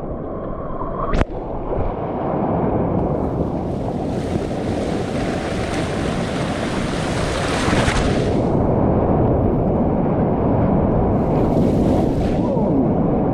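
Ocean water rushing and churning right at a GoPro in the surf, with a louder hissing rush of breaking whitewater for about five seconds in the middle and again briefly near the end. A short sharp click about a second in.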